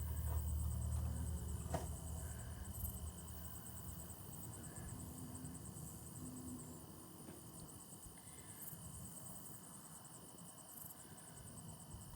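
Crickets chirping in a fast, steady pulse over a quiet pasture. A low rumble fades out over the first few seconds, and there is a single sharp click about two seconds in.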